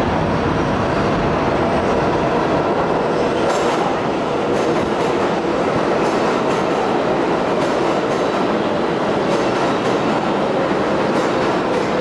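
Steel-wheeled 7 train subway cars pulling into an underground station and slowing alongside the platform: a steady, loud rumble and clatter of wheels on rail, with faint squealing tones now and then.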